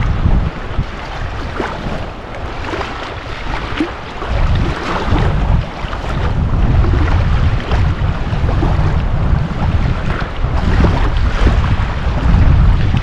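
Wind buffeting the microphone in uneven gusts, over the steady rush of a fast river at the water's edge.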